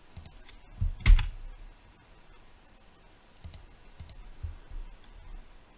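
A handful of scattered clicks from a computer keyboard and mouse, the loudest about a second in.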